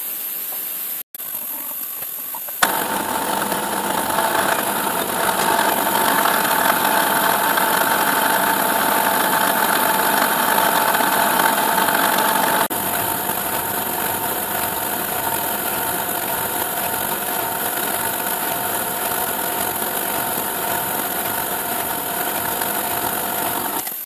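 CNC milling machine spindle running a 3 mm slot drill that is milling a pocket into a metal mould plate. A steady machine hum becomes a louder steady whine with cutting noise about two and a half seconds in, as the cutter works through the metal.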